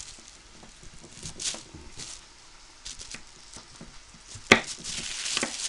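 A kitchen knife cutting a lump of beeswax on a plastic sheet: scattered light taps and rustling of the plastic, with one sharp click about four and a half seconds in.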